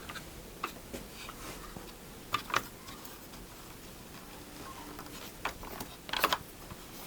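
Scattered light clicks and knocks of things being handled while setting up at the bandsaw, with a small cluster of sharper knocks near the end; the saw is not running.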